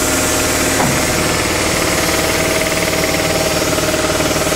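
Portable air compressor running: a loud, steady, rapid pounding. A steady tone joins in about a second in.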